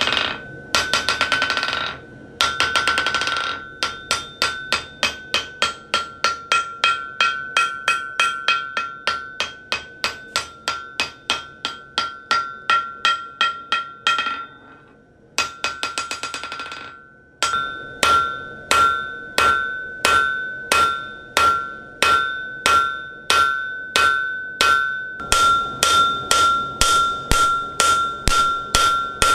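Hammer blows on a 1904 Firminy cast steel anvil of 290 kg, each blow ringing with a clear, high, steady ring that carries on between strikes. Fast, even hammering at about four blows a second breaks off briefly about halfway, then goes on at about two blows a second.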